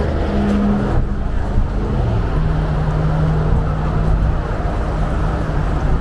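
A motor vehicle's engine running with a steady low hum over a rumble, its pitch stepping down about two seconds in.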